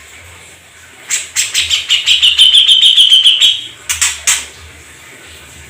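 A songbird singing a fast, loud run of about twenty repeated notes lasting over two seconds, followed by two short sharp notes.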